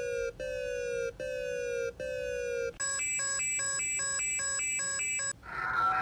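Electronic emergency alert tones, two in turn. First comes a beep that drops in pitch, repeated four times. Then, from about three seconds in, a fast repeating pattern of chiming beeps runs about three times a second, and a different alarm tone starts near the end.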